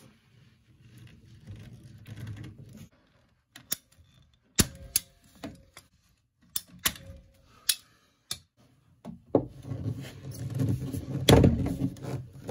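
Ratcheting PVC pipe cutter squeezed through a length of PVC pipe: a string of about eight sharp clicks in the middle. Before it, soft handling of pipe and fittings; near the end, a louder rubbing scrape as PVC pipe is worked into a fitting.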